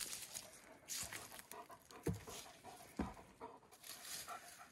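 Faint footsteps climbing wooden stairs, with a couple of heavier footfalls on the steps about a second apart, amid rustling of dry leaves and brush.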